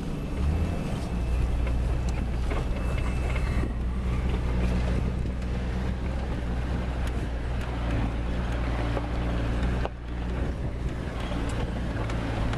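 Toyota Land Cruiser 100 Series engine running steadily, a low even hum with road and wind noise over it. The level drops sharply for a moment about ten seconds in, then carries on.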